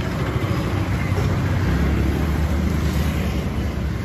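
Low rumble of road traffic, a vehicle engine running close by, swelling for a second or so in the middle.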